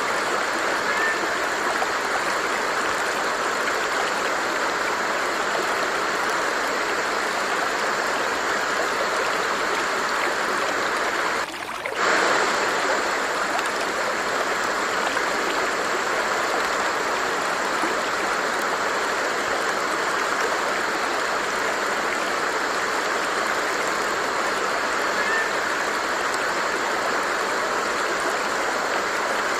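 A stream of water flowing steadily, an even rushing sound, with a brief drop in level about twelve seconds in.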